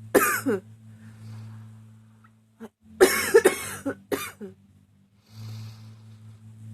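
A woman coughing in fits: one harsh cough just after the start, then a quick run of four or five coughs about three seconds in, and a drawn breath near the end.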